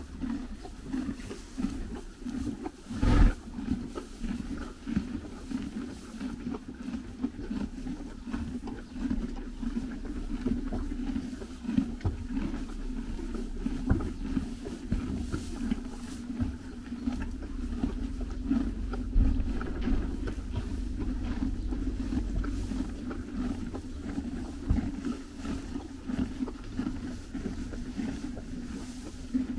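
Horses chewing hay, a continuous crunching and rustling of dry stems with a low rumble underneath. There is one loud knock about three seconds in.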